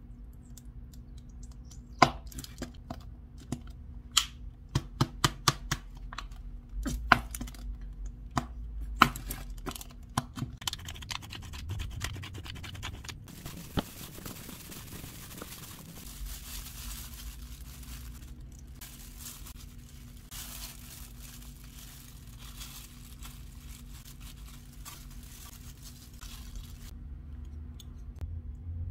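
Food-prep handling sounds. A run of sharp clicks and pops fills the first ten seconds or so. Then comes a long stretch of rustling and crinkling as a hand in a disposable plastic glove mixes shredded imitation crab with mayonnaise in a glass bowl.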